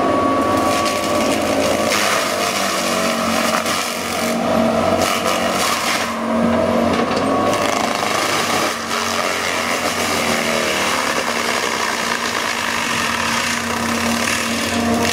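Heavy equipment engine running steadily under load, with a whine that wavers slightly in pitch.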